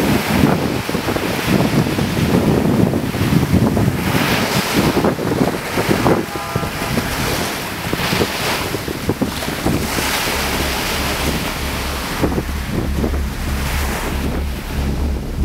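Sea waves breaking and washing up a sandy beach, the surf swelling and easing, with wind buffeting the microphone.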